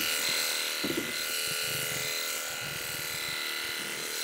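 Electric sheep-shearing handpiece running with a steady buzzing whine as its comb and cutter shear through a ram's fleece.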